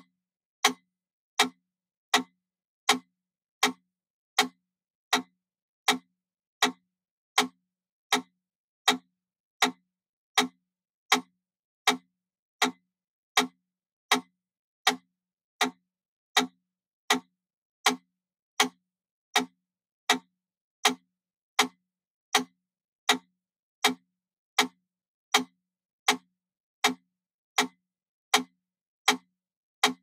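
Wooden mechanical metronome ticking at 80 beats per minute: identical sharp clicks, evenly spaced about three every two seconds.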